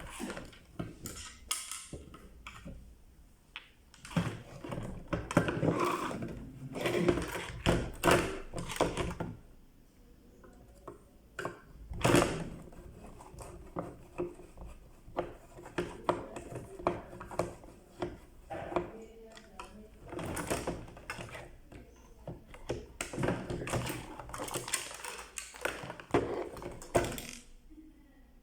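Irregular clicks, knocks and rattles of hard parts and tools being handled during work on a clothes iron. The sound comes in busy clusters with short quieter gaps and one sharper knock about twelve seconds in.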